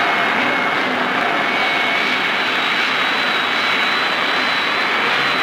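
Jet aircraft taking off: a steady rushing turbojet roar with thin high whines, the highest one creeping slightly up in pitch.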